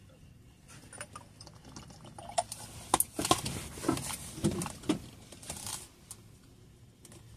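Handling noise: a run of sharp clicks, taps and knocks, with a few duller thumps, starting about two seconds in and dying away about six seconds in.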